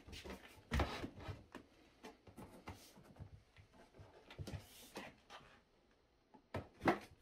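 Hands pressing and rubbing a heated, softened vinyl plank down over a wooden form to bend it into a stair nose. The plank and the wood give irregular soft knocks and clicks, the loudest about a second in and again near the end.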